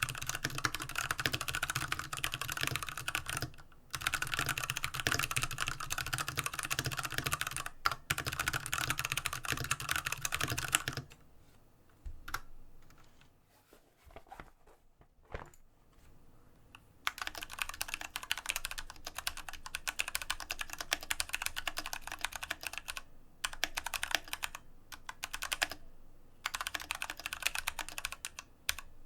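Fast, continuous typing on an IQUNIX F96 mechanical keyboard with Cherry MX Brown switches, dense key clacks. About eleven seconds in it stops for a few seconds with only a few stray clicks. It picks up again with less bass, the keyboard now resting on a deskmat.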